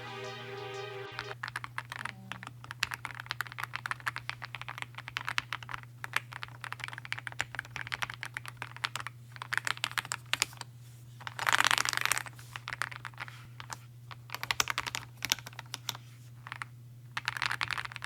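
Typing on a budget mechanical keyboard with stabilizers and a plastic case: fast, irregular keystroke clatter, with a louder half-second flurry about twelve seconds in. Electronic music ends about a second in, and a steady low hum runs underneath.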